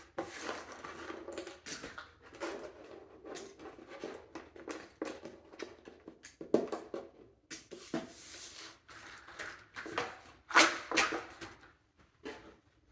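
Cardboard jigsaw puzzle pieces being handled on a table: a busy run of light clicks, taps and rustles, with a few sharper knocks about six and a half and ten and a half seconds in.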